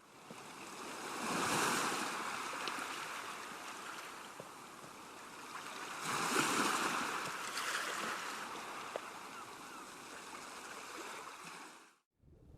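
A steady rushing noise that swells twice, about five seconds apart, and cuts off suddenly shortly before the end.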